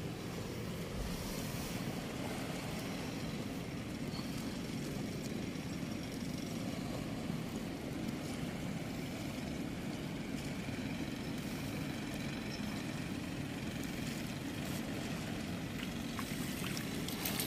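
Steady rush of water flowing through a weir's sluice gate, with a few rustles and clicks near the end.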